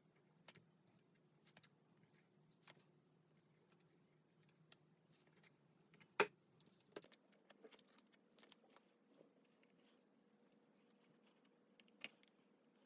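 Faint, scattered small clicks and taps of stationery being handled on a desk while decorating a diary page, with one sharper tap about six seconds in and another near the end.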